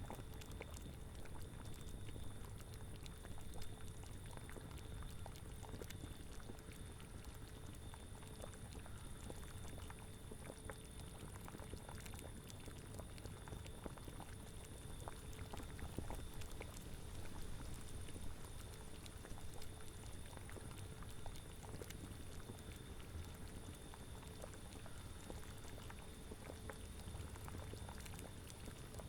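A cauldron of liquid boiling steadily: a continuous stream of small bubbling pops over a low rumble.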